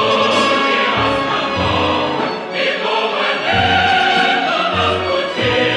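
Choir singing the chorus of a Soviet revolutionary march song in Russian over instrumental accompaniment, with a regular low beat underneath.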